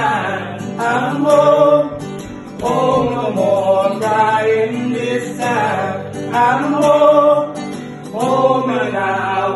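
A man singing and accompanying himself on acoustic guitar: sung phrases with long held notes and short breaks between them.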